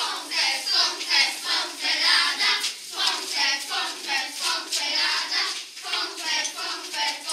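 A group of children singing together and clapping along in rhythm.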